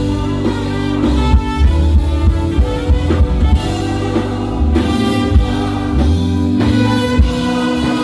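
Instrumental band music with a bass line and beat, starting abruptly.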